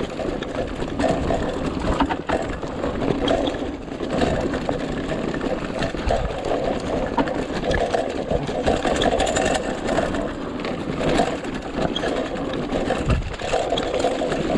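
Mountain bike coasting fast down a dirt forest trail: a steady mechanical buzz, the freewheeling rear hub, swelling and fading with speed, over tyres rolling on dirt and leaves and the bike clattering over bumps.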